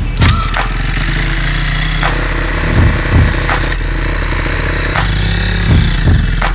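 Four-stroke dirt bike engine running steadily.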